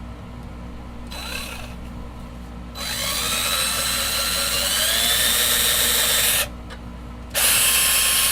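Power drill boring a pilot hole for a pickguard screw into a guitar body: a short light run, then a long run whose whine rises as the motor speeds up, then one more short run near the end.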